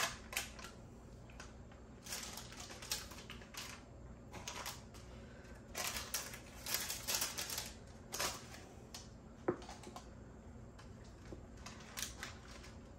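Parchment paper crinkling and crackling in irregular bursts as it is pressed and folded into a glass loaf pan by hand, with a few sharp clicks.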